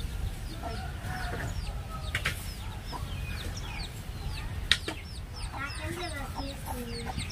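A hen with her chicks: the chicks peep over and over in short, high, falling chirps while the hen clucks low now and then. A single sharp tap sounds about two-thirds of the way through, over a steady low rumble.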